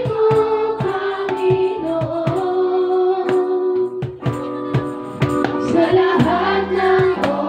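Tagalog worship song sung over a live band, with held sung notes and a steady drum beat.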